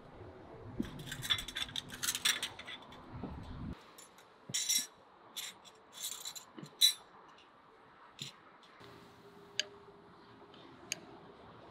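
Glass tea cups, china saucers and metal spoons clinking on a table as they are set down and handled: a busy run of clinks in the first few seconds, scattered clinks after, then two single sharp ticks of spoon on china near the end.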